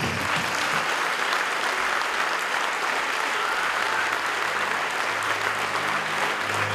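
Audience clapping steadily as a bagpipe dance number ends. Near the end a low held note from the next music comes in faintly.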